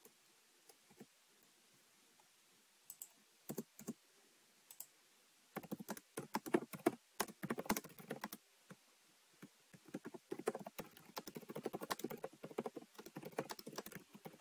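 Typing on a computer keyboard. A few scattered keystrokes come first, then quick runs of rapid key clicks from about five seconds in, broken by a short pause partway through.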